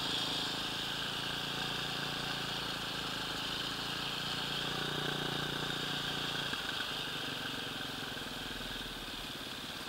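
Enduro motorcycle engine running as the bike rides along, with steady wind rush on the helmet camera; the engine note drops about two-thirds of the way in as the rider eases off and slows.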